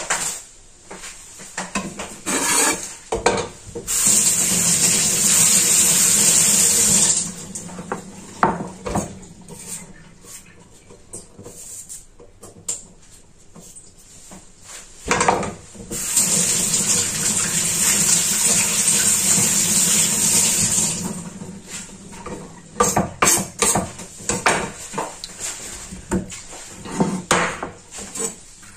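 A kitchen tap runs twice, about three seconds and then about five seconds, with scattered knocks and clatter of a knife and dishes on a wooden cutting board between the runs.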